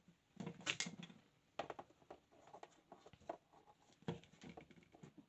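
Light handling noises from small driftwood twigs and a cardboard milk carton: scattered taps, clicks and rustles, irregularly spaced.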